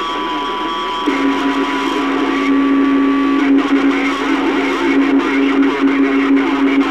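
CB radio audio through a speaker: static and garbled transmission with steady whistling carrier tones. A lower steady tone comes in about a second in and holds, while the higher whistle cuts off partway through.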